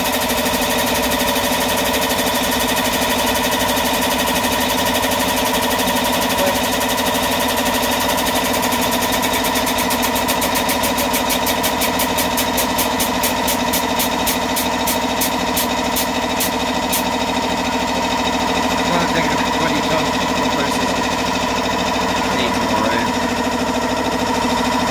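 A 20-ton hydraulic press's pump runs steadily with a constant hum while the ram crushes a 1 kg silver bar flat. A rapid ticking sounds through the middle, slows and stops about two-thirds of the way through.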